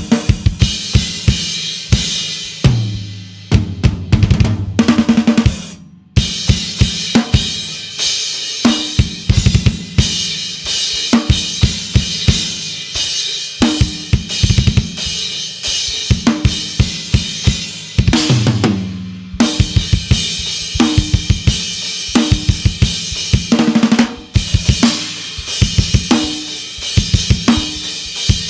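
Acoustic drum kit played hard and fast: rapid kick-drum strokes under snare hits and a constant wash of cymbals and hi-hat. The kit breaks off suddenly for a moment about six seconds in, then crashes back in.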